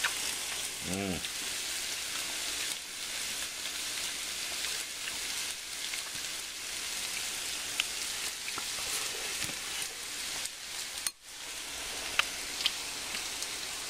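Cabbage and onions frying in bacon grease in a pan, a steady sizzle. A few light clicks of a fork against a ceramic bowl near the end.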